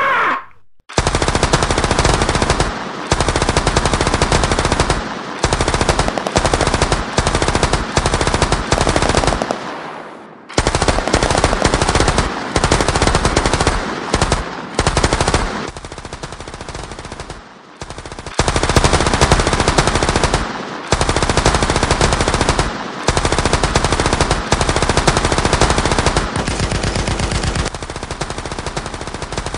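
Automatic gunfire sound effect: rapid machine-gun fire in repeated bursts of one to three seconds with short gaps between them.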